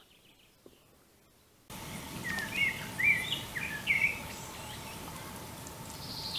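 Wild songbirds singing: after near silence, outdoor background noise comes in abruptly about two seconds in, with several short warbling phrases followed by a rapid trill of repeated high notes near the end.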